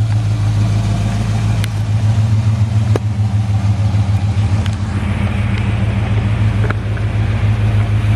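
1984 Pontiac Parisienne wagon driving, heard from inside the cabin: a steady low engine and exhaust drone, muffled by Dynamat sound deadening on the floors. A few faint clicks sound over it.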